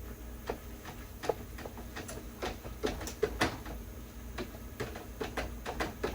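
Scattered light clicks and taps of kitchen items being handled, irregular and fairly quiet, over a low steady hum.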